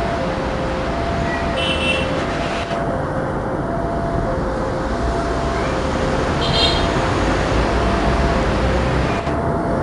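A level-crossing warning alarm rings an even two-tone chime, higher and lower notes alternating about every half second. Under it runs the steady rumble of an approaching diesel-hauled passenger train, with two brief high chirps over it.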